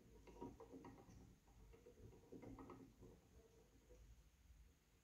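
Faint, irregular clicking of plastic gear teeth meshing as a small 15-tooth gear is turned by hand, driving a 45-tooth gear.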